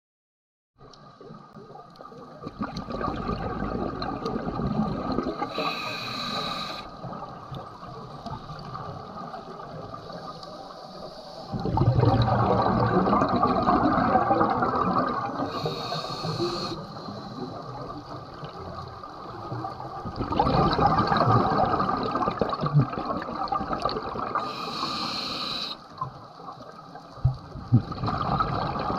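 Scuba regulator breathing heard underwater: three breaths, each a short hiss of inhalation through the demand valve followed by a longer gush of exhaled bubbles.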